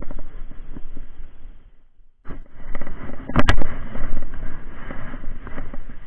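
Rustling and scraping of clothing and riverbank grass against a body-mounted camera's microphone as the wearer moves through the reeds, with a pair of sharp knocks about three and a half seconds in. The sound drops out almost completely for a moment just before two seconds in.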